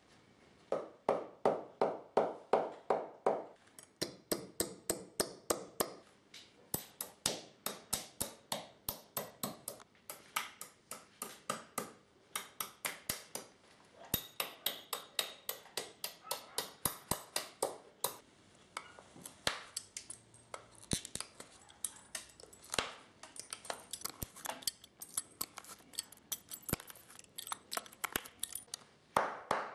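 Shoemaker's hammer driving tacks through a leather upper into a wooden shoe last while lasting the shoe: quick, sharp taps about three a second, in runs with short pauses.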